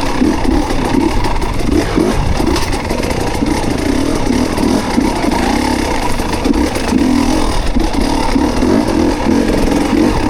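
Dirt bike engine running steadily at low revs, its pitch wavering slightly, with some clatter.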